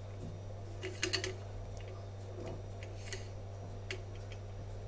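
A few light taps and soft knocks, about a second in, near three seconds and near four seconds, as rice-dough dumplings are set into an aluminium idli plate, over a steady low hum.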